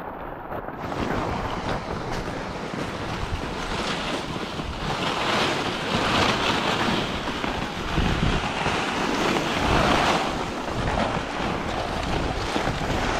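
Steady rushing noise of freezing rain and wind on the microphone, mixed with toboggans sliding over icy snow. It swells louder twice, once around five to seven seconds in and again around nine to ten seconds in.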